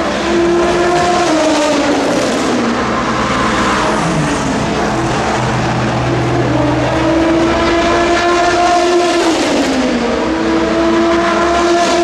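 Race car engines running at high revs as cars pass at speed one after another, the pitch dropping as each goes by: about two seconds in, again near ten seconds, and at the end.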